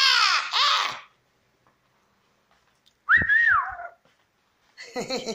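Pet parrot calling and whistling: a couple of arching, wavering cries in the first second, then a short whistle that rises and falls about three seconds in, and a brief rougher call near the end.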